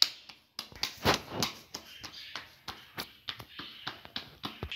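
Bare hands patting and pressing a ball of cornmeal dough flat for a makki roti: a quick, irregular run of soft pats and taps.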